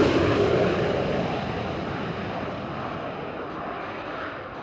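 Su-22M4 Fitter-K jet's single Lyulka AL-21F-3 turbojet roaring after a low pass and fading steadily as the jet moves away, its hiss dying off first.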